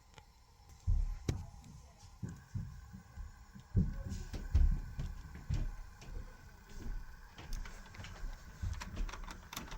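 Model railroad diesel locomotive running along the track, with a faint steady motor whine and scattered sharp clicks. Irregular low thumps, the loudest sounds, begin about a second in.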